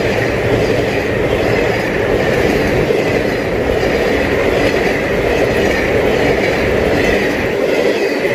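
Egyptian passenger train's coaches passing close at speed: a loud, steady rush of steel wheels on the rails.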